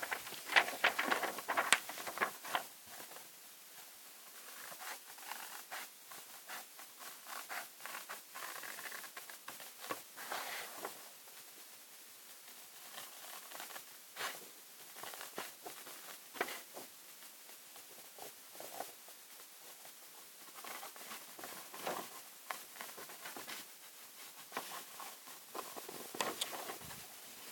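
Scissors cutting through sheet paper: irregular snips with paper rustling, loudest in the first couple of seconds.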